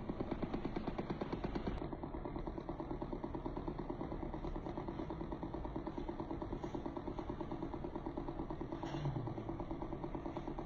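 Percussion massage gun running, its head pressed against a cat's rump, making a steady motor hum with a rapid, even pulsing.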